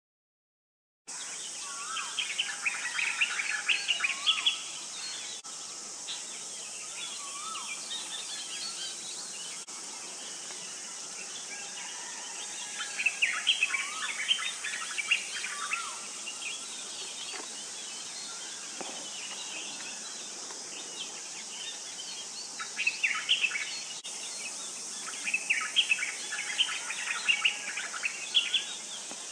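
White-browed bulbul singing in about four short bursts of rapid, jumbled chattering notes, over a steady high hiss.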